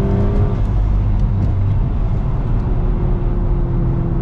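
2016 VW Golf R's turbocharged 2.0-litre four-cylinder running steadily while driving, its pitch easing slightly downward. It runs on fresh NGK spark plugs with the misfire cured.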